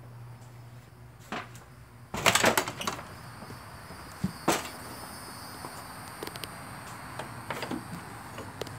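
A door being opened: a click of the latch, then a brief loud clatter as the door and the blinds over its window swing, and a single sharp knock a couple of seconds later.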